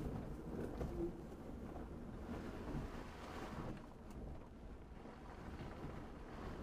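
Truck driving slowly along a rutted dirt trail, heard from inside the cab: a steady low rumble of engine and tyres, with a faint knock or rattle about four seconds in.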